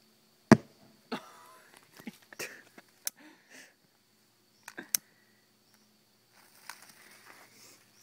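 Fireworks going off in water: a deep, loud bang about half a second in, then a string of sharper cracks and pops over the next few seconds, some trailing off, with fainter crackling near the end.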